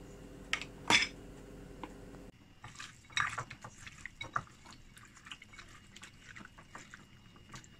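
A hand squishing and turning chicken pieces in a bowl of soy-sauce marinade: a run of small, irregular wet squelches and clicks. Two sharp taps come about half a second and a second in.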